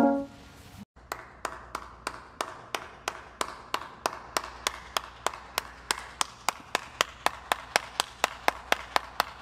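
A single person clapping slowly and steadily, about three claps a second. The last notes of an electronic keyboard die away at the very start.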